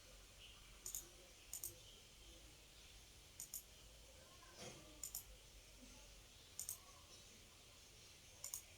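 Faint clicking of a computer mouse: six quick double clicks spread a second or two apart, over a quiet room.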